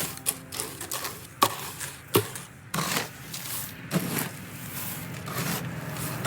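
Feed buckets being handled and filled: irregular knocks and clatter over a low rustling.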